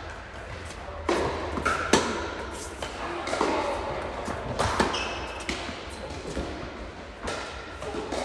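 Tennis rally: racquet strings striking the ball and the ball bouncing on the court, a run of sharp knocks about a second apart with the loudest hits near 1 s, 2 s and just under 5 s in.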